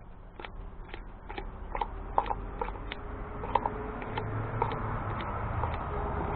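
Scissors snipping chopped strand fiberglass mat into small pieces over a plastic mixing cup, a steady run of short crisp snips about two a second.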